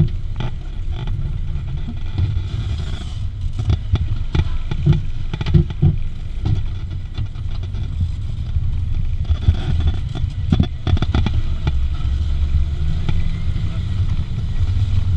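Off-road 4x4's engine running steadily at low revs while it crawls over rough ground, with many short knocks and rattles from the vehicle as it bounces.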